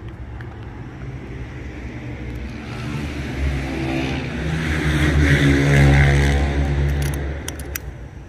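A motor vehicle driving past on the street. Its engine and tyre noise swell to a peak about six seconds in, then fade. A few light clicks come just before the end.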